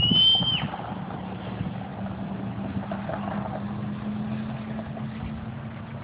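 Steady low hum of a motor vehicle engine running, setting in about a second in. Right at the start, a single high whistled note of under a second rises slightly and then drops away.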